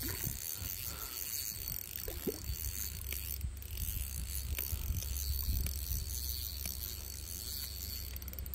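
Spinning reel being cranked, its gears and ratchet whirring and ticking softly, while a hooked sunfish is reeled in.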